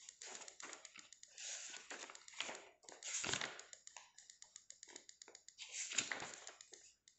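Paper pages of a textbook being turned by hand: a series of soft rustles and swishes, the loudest about three seconds and six seconds in.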